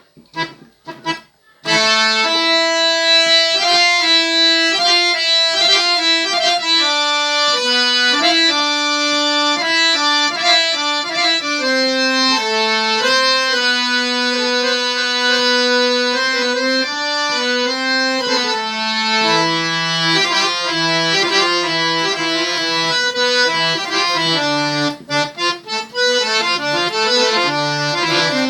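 Harmonium with its male-male-female reed set and coupler engaged, playing a melody in sustained reedy notes and chords that begins about a second and a half in. Near the end it plays a few short, detached notes.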